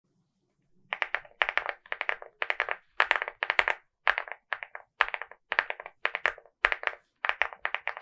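Typing on a LEOBOG Hi75 mechanical keyboard with Vertex V1 linear switches and MOA-profile keycaps. It starts about a second in: quick clusters of keystroke clacks, several per cluster with short pauses between, like words being typed.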